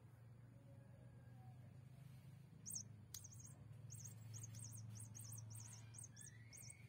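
Faint, rapid series of short, very high-pitched chirps, starting about three seconds in and stopping shortly before the end, over a low steady hum.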